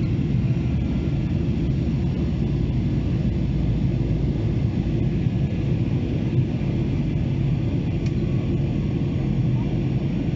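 Steady low rumble of a Boeing 737-800's CFM56-7B jet engines and airflow in flight, heard from inside the passenger cabin.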